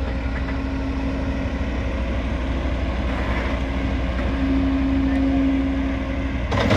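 Tracked excavator's diesel engine running steadily with a low drone and a held mechanical tone, which steps up slightly in pitch and gets louder a little after four seconds in. A louder rattling noise sets in right at the end.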